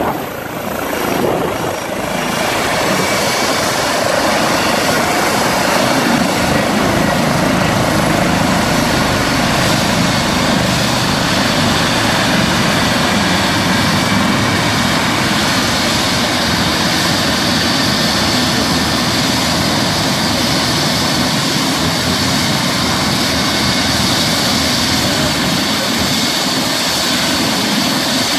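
Eurocopter EC135 air-ambulance helicopter on the ground with its turbines running and rotor turning: a steady rotor whoosh with a high turbine whine.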